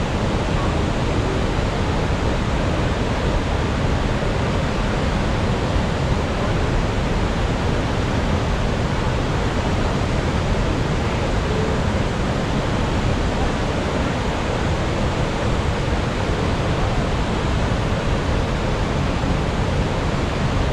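Steady, unbroken rush of a waterfall, a loud even wash of water noise with no breaks.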